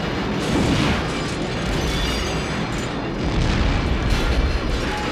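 Film sound effects of explosions: a dense, deep rumble that swells twice, once about half a second in and again near the end.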